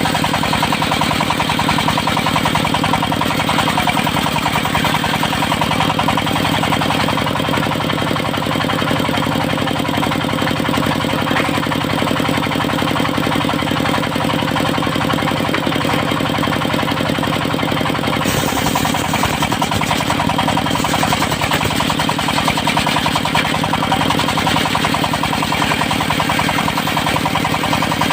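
The engine of a mobile circular sawmill running steadily with a fast, even pulse, and the saw's sound turns brighter and hissier about two-thirds of the way through.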